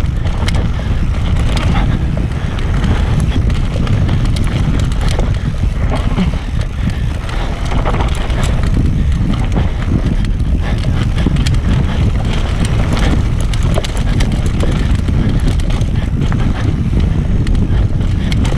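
Mountain bike descending rough dirt singletrack at speed: steady wind buffeting on the camera microphone, with tyres rolling over dirt and the bike's frame and chain rattling and clattering over rocks and roots.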